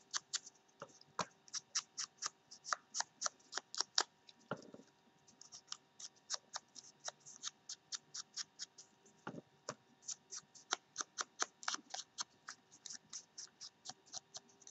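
Rapid light taps, several a second, of an ink pad dabbed against the edges of a small paper butterfly to ink them. A faint steady hum runs underneath.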